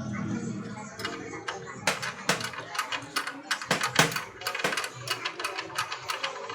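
Metal tools and small engine parts clinking and knocking against each other in an irregular string of sharp clicks, several a second, busier after about two seconds in.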